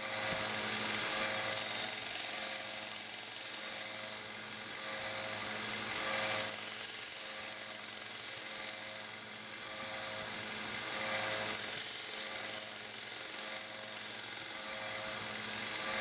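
WEN 1x30 belt sander running with a 240-grit belt while a steel pocketknife blade is ground on it: a steady motor hum under a hissing grind. The grind swells and fades about every five seconds as the blade is passed over the belt.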